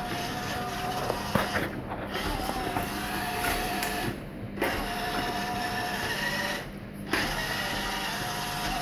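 Roomba robot base running, its motors whirring with thin whining tones that shift in pitch as it drives, with a few sharp clicks.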